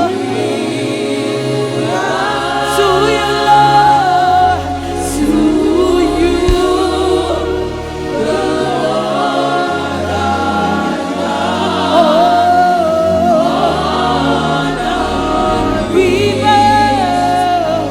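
Live gospel worship music: a choir and lead singer singing over sustained keyboard and bass chords.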